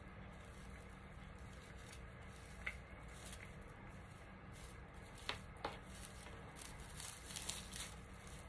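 Faint rustling of dry raffia being fluffed and pulled open by hand, with a few light clicks.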